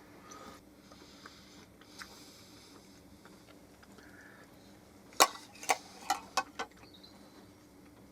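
Tableware clinking during a meal: a quick run of about six light knocks and clicks past the middle, otherwise quiet room tone with a faint steady hum.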